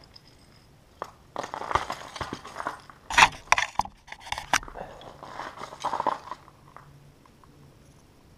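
Close rustling, scraping and crackling handling noise on the GoPro as it is touched and adjusted, with several sharp knocks between about three and four and a half seconds in.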